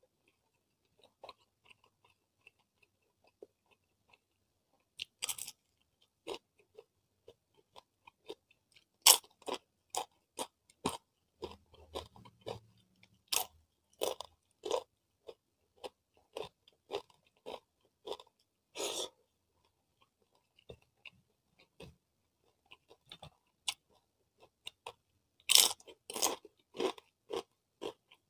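A person chewing and crunching crisp fried food close to the microphone. A few scattered crunches come first, then from about a third of the way in a steady run of crunches about twice a second, loudest near the end.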